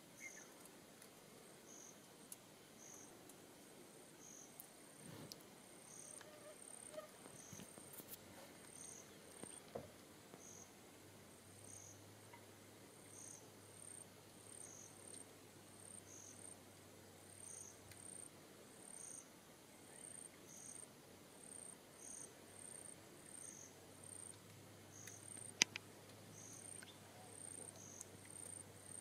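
Faint insects chirping in grassland: short high chirps repeating a little more than once a second over a steady high trill. A single sharp click sounds near the end.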